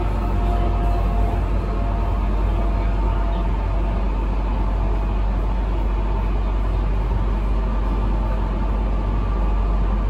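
Steady running rumble of a Queensland Rail electric suburban train, heard from inside the carriage. A faint whine fades out over the first couple of seconds.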